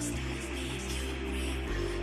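Background music: an instrumental passage with guitar over steady held bass notes, the chord changing twice.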